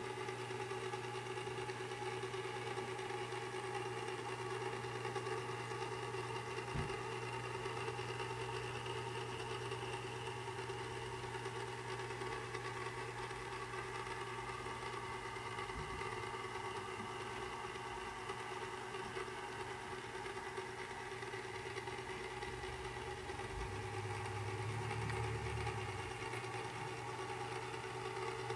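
Motorized display turntable running, a steady mechanical hum of its electric motor with several constant tones. A single faint click about seven seconds in, and a low swell in the hum for a couple of seconds near the end.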